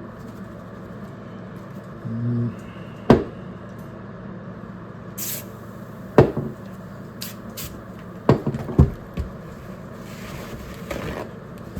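Workshop handling noises: four sharp knocks and clunks of hard objects being set down or moved, with a short hiss about five seconds in and a brief low hum about two seconds in, over a steady background hum.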